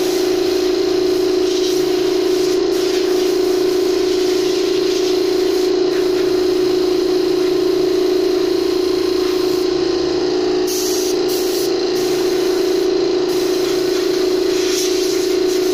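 Air compressor running steadily: a loud, continuous hum with hiss over it.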